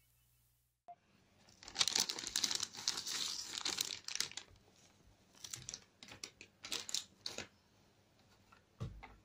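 Crackling, rustling handling noise from hands on the camera and the plastic router. It is densest for a few seconds, then thins to scattered clicks, with a couple of dull thumps near the end.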